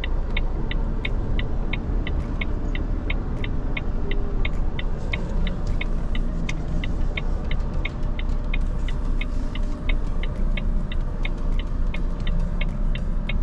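Hazard-warning flasher relay of a truck ticking steadily, about three clicks a second, over the low rumble of the truck's diesel engine running slowly.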